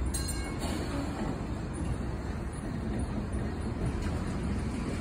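1944 PCC streetcar rolling past on its rails: a steady low rumble of its wheels and running gear, with a brief high wheel squeal at the start.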